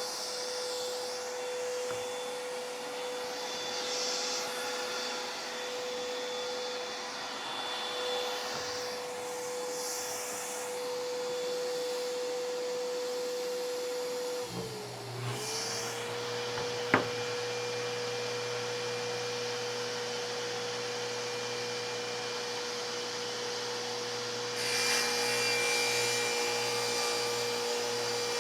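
Workshop electric motor running steadily with a high whine. About halfway through its pitch dips briefly and recovers, as under a momentary load, and a lower hum joins in. A single sharp click comes a little later, and the noise grows louder near the end.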